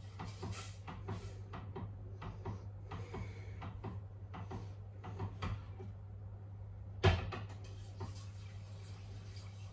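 Wire whisk stirring flan custard in a saucepan: an irregular run of quick clicks and scrapes that stops about six seconds in. About seven seconds in comes one sharp knock with a brief ring, and a smaller one a second later, over a steady low hum.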